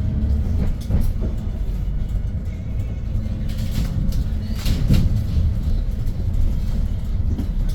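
Interior running noise of a 2022 Hyundai New Super Aerocity city bus with a C6AF 290 hp CNG engine under way: a steady low engine and road rumble. A short burst of noise rises over it about four to five seconds in.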